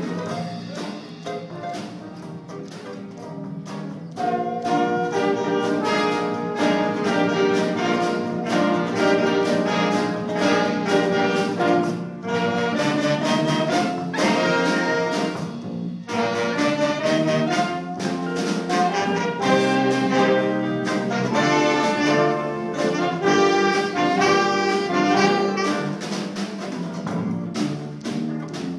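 Live jazz ensemble playing: saxophones and brass over guitars and piano, the full band coming in louder about four seconds in.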